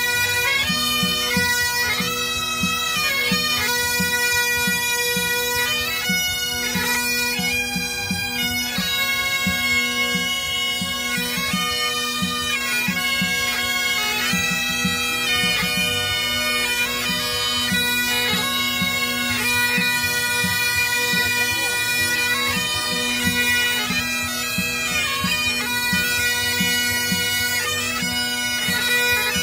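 Great Highland bagpipes playing a melody over their steady, unbroken drones.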